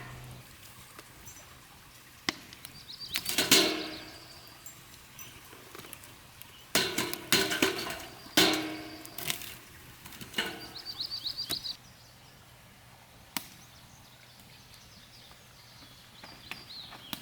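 Scattered knocks and scraping handling noises, loudest about three seconds in and again midway, with a few short high bird chirps.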